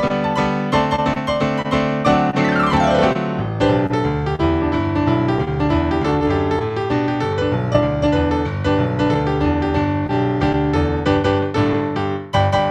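Piano music, fast and densely played, with a quick downward run sweeping from high to low about two seconds in.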